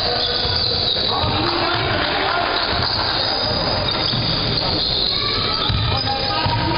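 Basketball game sound in a gym: a ball bouncing, sneakers squeaking on the court, and players' and spectators' voices.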